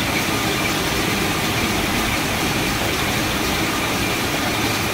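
Circular knitting machines running together: a steady, even mechanical din with a faint high tone through it.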